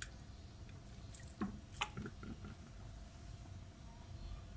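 Raw chicken breasts set down into an empty metal pot, with a couple of brief wet slaps about a second and a half in, over a faint steady hum.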